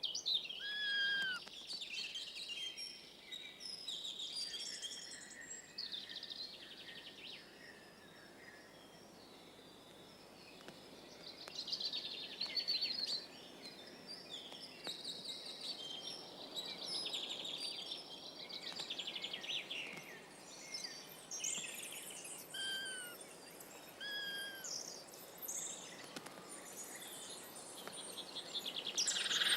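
Small songbirds calling and singing, with many short overlapping chirps and trills and a few clear down-slurred whistles. There is a quieter lull about a third of the way through and a louder burst of calls at the very end.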